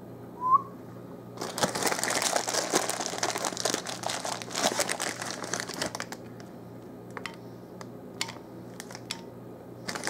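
A plastic bag of chocolate chips crinkling as it is handled, for several seconds from about a second and a half in, followed by a few light ticks. A short high chirp sounds about half a second in.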